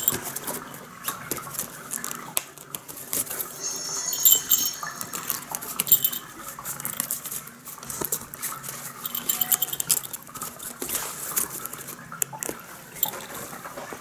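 A cat scrabbling and rustling about inside a fabric pop-up play tunnel, with many small clicks and scuffs. Brief high-pitched jingles ring out about four seconds in, near six seconds, and again around nine seconds.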